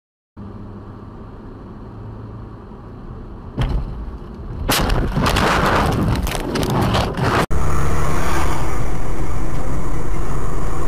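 Dashcam audio of a car collision: steady engine and road noise, then a sharp bang and a loud stretch of crashing and scraping impacts that stops abruptly. A loud, steady rush of road noise from another car follows.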